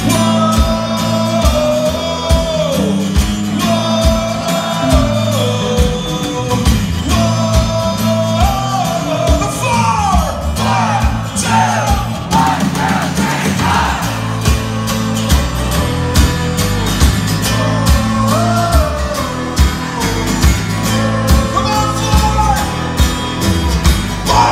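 Live acoustic punk-rock band playing: strummed acoustic guitars, electric bass and drums under a sung lead vocal. Midway through, audience voices sing and shout along with the band.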